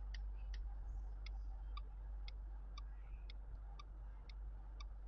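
Clock ticking sound effect: a steady tick-tock, about two ticks a second, with alternate ticks lower in pitch.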